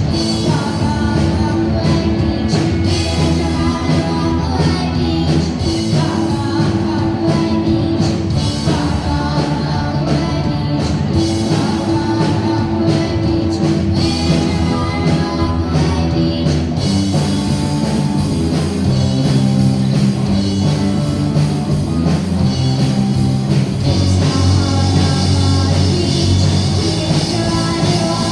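Rock band playing a song with a singer, electric guitar, bass and drum kit; the drumming changes about halfway through.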